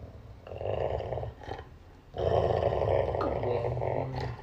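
Golden retriever growling at a man petting and kissing it: a shorter growl about half a second in, then a longer, louder one from about two seconds in.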